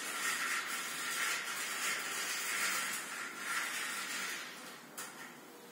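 Vertical blind being tilted: its fabric slats swivel and brush against each other with a steady rustling hiss for about four seconds. A single sharp click follows about five seconds in.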